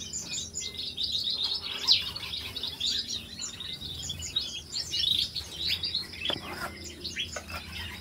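Many small aviary birds chirping and twittering without a break, several calling at once. A few short knocks stand out from it, the loudest about two seconds in, as pieces of papaya are set down on a wooden table.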